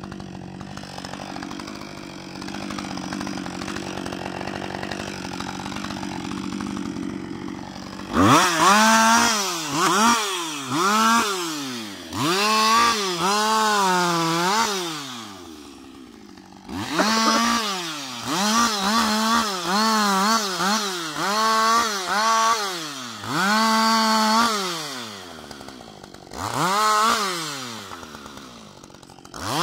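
Husqvarna 560 XP two-stroke chainsaw idling steadily for about eight seconds, then revved to full throttle over and over in short bursts, each rising and falling back, as it makes quick cuts through the branches of a fallen spruce.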